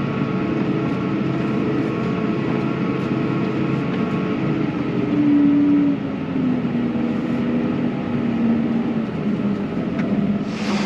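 Farm tractor's engine running steadily, heard from inside its cab; the engine note dips slightly about six seconds in.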